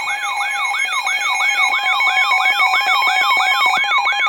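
Electronic alert siren tone: a fast, repeating rising sweep, about three sweeps a second, over steady pulsing beep tones.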